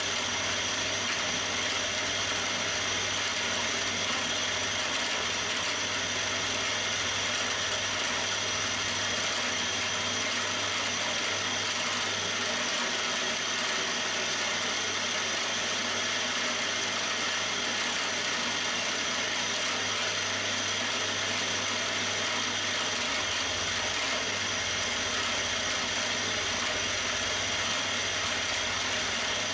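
Milling machine running steadily as a small end mill cuts serration grooves into a metal vice soft-jaw blank: an even mechanical hum with a steady whine, no change in pitch or level.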